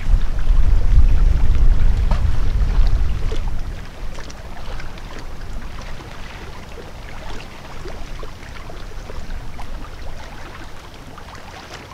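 Wind buffeting the microphone: a loud, uneven low rumble for the first few seconds that drops away to a faint outdoor hiss with a few small scattered clicks.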